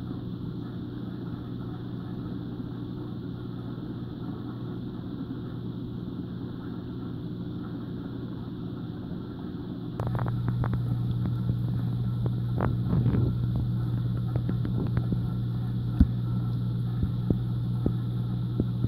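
Steady low electrical hum of aquarium equipment such as pumps, picked up through the tank, getting louder about ten seconds in. Scattered sharp clicks and taps follow, with one louder tap a few seconds before the end.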